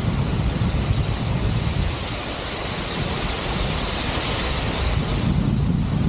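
Wind buffeting the microphone in flight, with the rush of a waterfall close by that swells toward the middle and drops away shortly before the end as the paraglider passes it.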